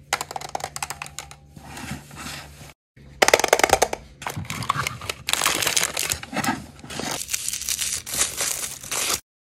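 Plastic toy capsules being handled and opened: rapid clicks and rattles of plastic compartments and tabs, loudest just after a brief break about three seconds in. After that comes the crinkling of a foil wrapper being peeled back.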